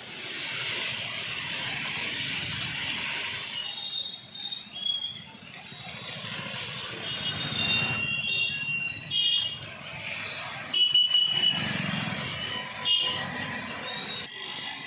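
Traffic driving through a flooded street in rain. For about the first four seconds there is a steady hiss of rain and splashing water. After that, many short horn toots sound repeatedly over the low running of small vehicle engines.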